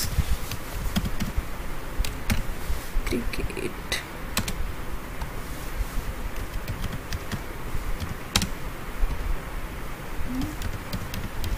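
Typing on a computer keyboard: irregular key clicks in short runs as words are typed.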